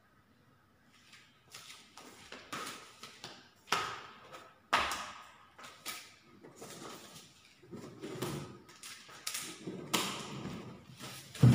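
Plastic packing straps on a cardboard box being tugged and worked loose: irregular rustles and scrapes with a few sharp knocks. It starts after about a second of near silence.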